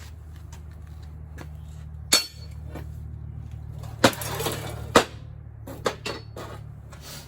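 Metal parts and tools knocking and clanking on a steel workpiece: about five sharp knocks, a few with a short ring, over a steady low hum that stops near the end.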